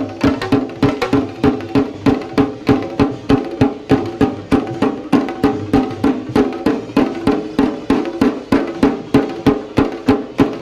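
Shinkari melam ensemble of chenda drums playing a fast, driving rhythm, with about three sharp strokes a second and a ringing drum tone beneath them.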